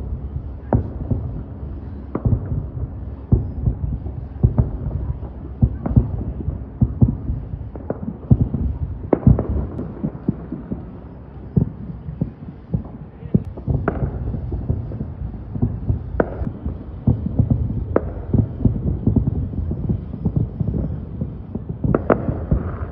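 Fireworks going off in quick, irregular succession: many low booms, several a second at times, over a continuous low rumble.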